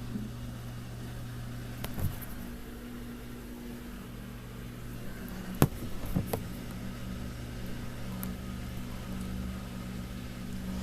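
Samsung Grande washing machine running its rinse cycle: a steady motor hum that drops away briefly after a knock about two seconds in, then returns. A few sharp knocks sound near the middle.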